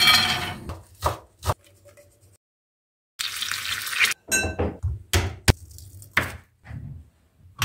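A quick series of kitchen cooking sounds, each clip cut off abruptly: a short burst of sizzling-like hiss and a string of sharp clinks and knocks of utensils and dishes.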